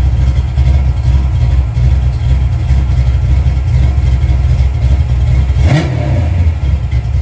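302 V8 with an aftermarket cam running steadily, given one quick blip of the throttle about three quarters of the way in. It is the freshly reassembled engine back running after its pistons' valve reliefs were ground to stop the intake valves hitting them.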